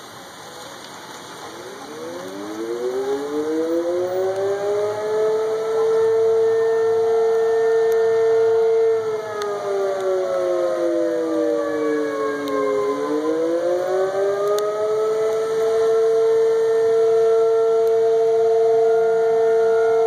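Outdoor tornado warning siren winding up to a steady wail. About halfway through, its pitch sags for a few seconds, then it winds back up to the steady tone.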